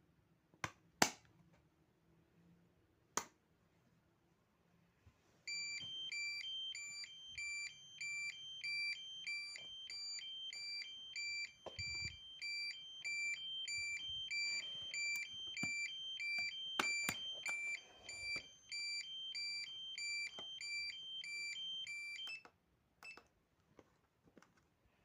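A few sharp clicks, then a fire alarm on a Signal-20M control panel system sounds: rapid electronic beeping that alternates between two pitches for about seventeen seconds and cuts off suddenly.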